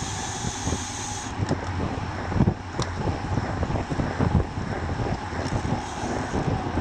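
Wind buffeting a bicycle-mounted action camera's microphone at road-race speed, near 50 km/h, with the rush of road bike tyres on asphalt. A high hiss drops away about a second in.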